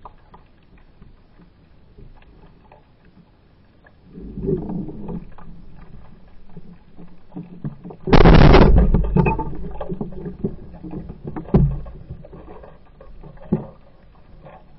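Band-powered speargun fired underwater about halfway through: one sudden, very loud crack as the rubber bands release, dying away over about a second. Muffled underwater water noise surrounds it, with a couple of sharp knocks a few seconds after the shot.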